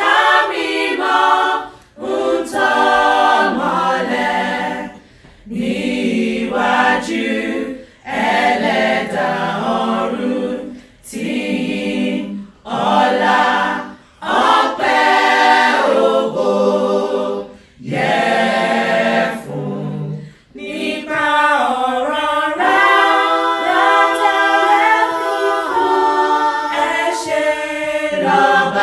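A choir singing a hymn a cappella, unaccompanied voices in phrases of a few seconds each, with brief breaks between them.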